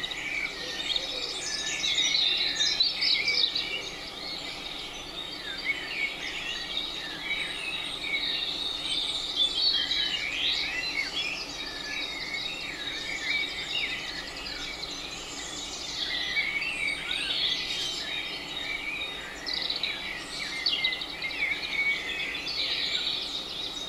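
Several songbirds singing at once, a dense run of overlapping chirps and short whistled phrases over a faint steady background hiss.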